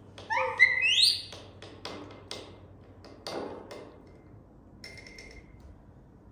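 A baby monkey gives a quick run of about four high-pitched squealing calls, each gliding up and down. A scattering of sharp taps or clicks follows, and near the end a brief faint squeak.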